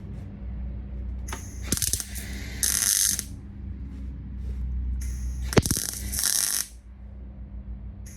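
MIG welder tacking a steel repair panel: several short crackling, hissing arc bursts of under a second to about a second and a half, with sharp clicks among them, over a steady low hum.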